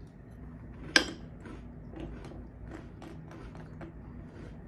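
Person chewing a mouthful of crunchy chocolate cereal in milk close to the microphone, a run of small crunches, with one sharp click about a second in.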